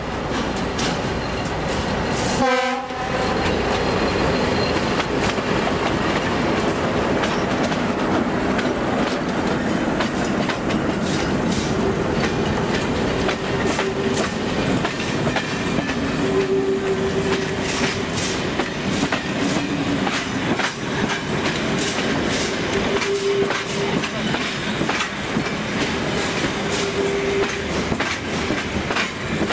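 A long passenger train of diesel-hauled coaches and railcars running past close by, with a steady rumble and the clickety-clack of wheels over the rail joints. A short horn blast sounds about two and a half seconds in.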